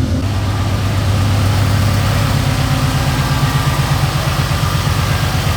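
2007 Ford Mustang engine idling steadily, running again on a newly fitted battery after a no-start.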